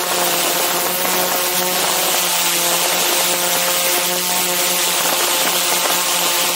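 Quadcopter drone's motors and propellers buzzing steadily in flight: an even, pitched hum over a rushing hiss, heard close up.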